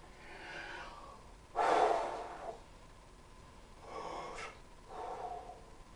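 A man breathing out audibly about four times, with the loudest breath a sharp one about a second and a half in.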